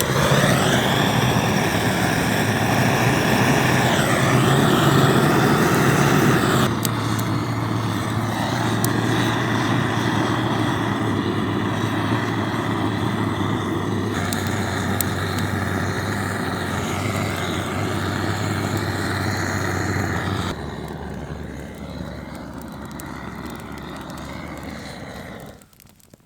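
Snow Peak handheld butane torch burning with a steady jet-like flame hiss while lighting campfire wood, dropping in level a few times and cutting off suddenly near the end.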